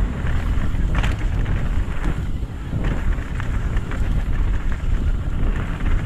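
Wind noise on the camera microphone and a mountain bike's tyres and frame rattling over a rocky dirt trail at speed, with scattered sharp clicks and knocks, the sharpest about a second in.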